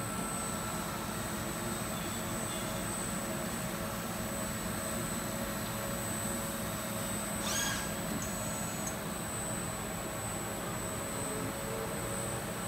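Deckel Maho DMU 50 ecoline machining centre running with a steady hum and a constant high thin tone. About seven and a half seconds in, a short whine sweeps up and back down.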